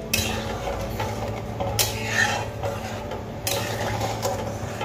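Metal spatula stirring a thin, boiling curry in a metal kadai, with about four scrapes and clinks against the pan over a steady low hum.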